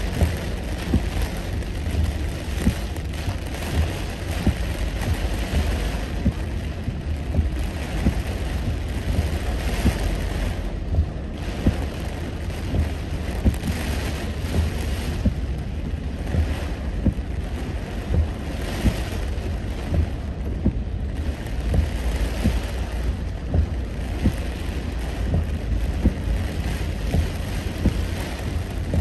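Heavy rain pattering on a moving car's roof and windshield, heard from inside the cabin as many small ticks over a steady low rumble of road and tyre noise on the wet highway, with the hiss swelling and easing every few seconds.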